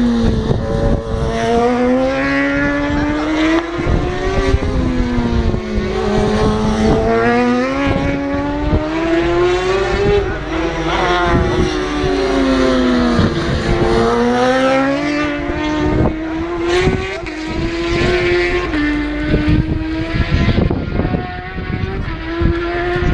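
Racing motorcycle engines accelerating hard up through the gears. The pitch climbs, drops at each gear change and climbs again, over and over.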